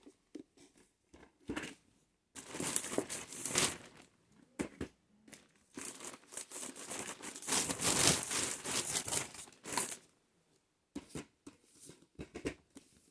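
Plastic crinkling and rustling in irregular spells with quiet gaps, and light clicks of plastic DVD and VHS cases being handled and shuffled in a stack.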